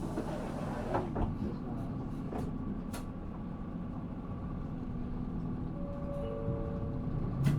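Inside a Mitsubishi Fuso PA-MK25FJ midi bus: steady low rumble of the diesel engine turning at low revs, with a few clicks and rattles, and a short falling two-note tone about six seconds in.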